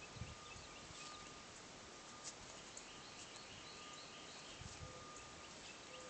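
Quiet outdoor ambience: a faint steady hiss with a short run of small bird chirps in the middle, and two soft low sounds, one just after the start and one near the end.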